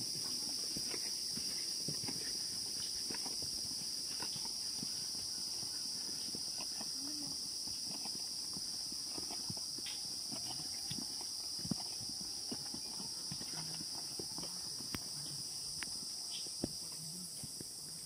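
Irregular clicks and knocks of footsteps and walking sticks striking the rocks of a stony forest trail, over a steady high insect chorus.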